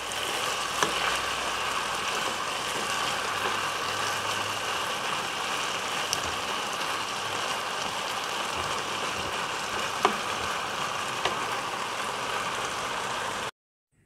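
Strips of spiced buffalo meat sizzling steadily in a hot pan as they are stir-fried, with a few sharp clicks of the spatula against the pan. The sound cuts off suddenly near the end.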